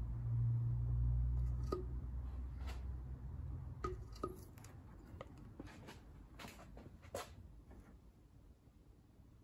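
Light clicks and scrapes of a caulking spatula and fingers working a sealant bead along a steel door's glass frame, a few at a time. A low hum runs under the first half and fades out about four seconds in.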